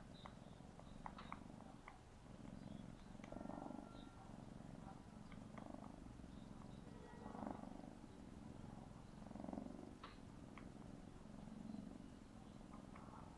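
Tabby kitten purring as it kneads, a faint steady purr that swells with each breath about every two seconds, with a few soft lip-smacking clicks.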